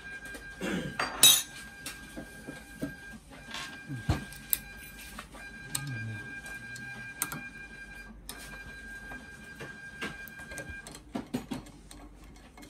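Screwdriver work on the metal frame of a Zebra ZT400-series label printer: scattered clicks, scrapes and metallic knocks as screws are turned and a steel bar is worked loose. The loudest knock comes about a second in. A faint steady high tone cuts in and out behind it.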